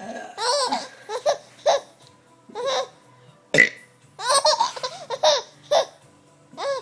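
Baby girl laughing at burps in a string of short, high giggling bursts that come in clusters, with a short, sharp sound about halfway through.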